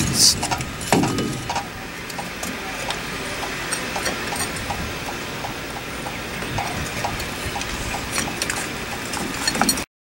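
Scattered light metal clicks and clinks of rear drum brake parts (shoes, return springs and the parking brake lever) being handled and fitted on the backing plate, with a few duller knocks in the first second or so, over steady background noise.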